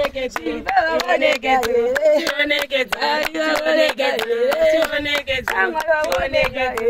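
A group singing a Shona call-and-response song while clapping hands in a steady rhythm, about four claps a second.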